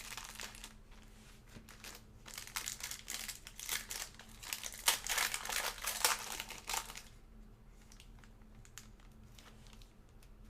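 Plastic card packaging crinkling and rustling in bursts as trading cards are unwrapped and handled, dying down after about seven seconds to a few faint clicks.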